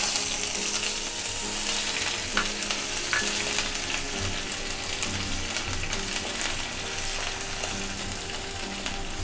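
Chopped onion sizzling in hot mustard oil in a kadhai, frying with a dense hiss that starts loudest just as the onion goes in and eases off slowly.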